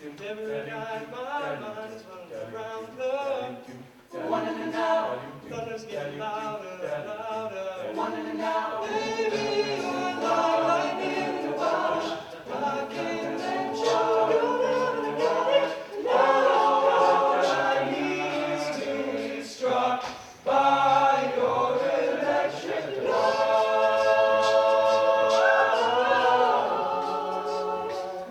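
A cappella vocal group singing in close harmony, several voices with no instruments; the voices drop out briefly about two-thirds of the way through, then hold a long sustained chord near the end.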